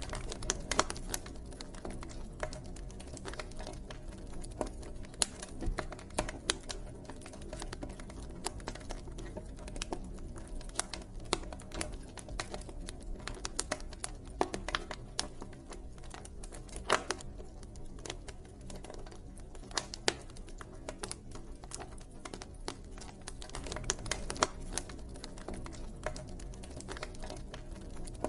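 Campfire crackling: burning wood gives off irregular sharp pops and snaps, a few of them louder, over a steady low rush of flame.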